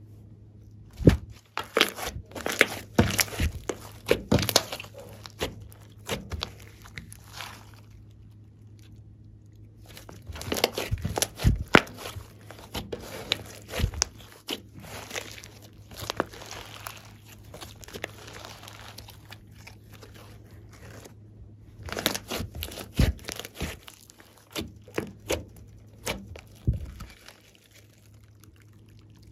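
Glossy slime mixed with clay being pressed, kneaded and stretched by hand: sticky crackling and popping with tearing sounds, in three bouts of several seconds with quiet pauses between.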